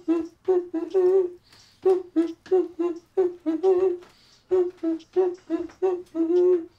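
A man humming a tune in short, clipped notes, about three a second, nearly all on one or two pitches, in phrases broken by brief pauses.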